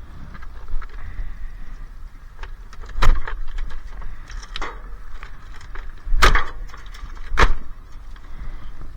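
Wiring being pulled out of a stripped dishwasher, the loom knocking and rattling against the metal cabinet: four sharp knocks, the loudest about three and six seconds in, between quieter rustling handling.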